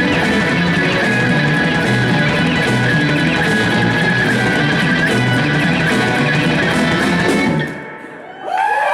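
Live bluesy rock band playing, with electric guitar and a steady beat. The song ends about eight seconds in, and audience whoops and cheering start right at the end.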